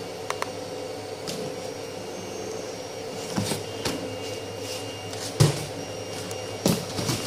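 3D-printer enclosure door being unlatched and swung open: a few clicks and knocks, the loudest a thump about five and a half seconds in, over a steady machine hum.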